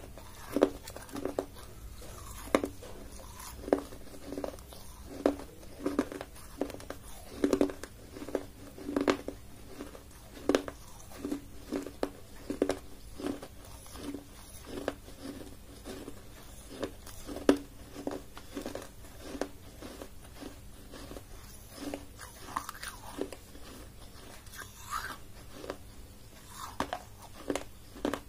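A person chewing and crunching pieces of baked clay, with a sharp crunch roughly every second that thins out over the last third.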